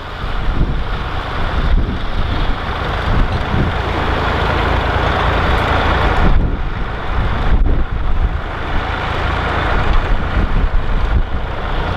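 A vehicle engine running steadily, mixed with wind buffeting the microphone.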